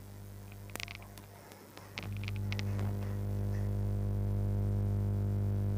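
Steady electrical mains hum with a stack of evenly spaced overtones, growing louder about two seconds in. A few light clicks and knocks come just before that.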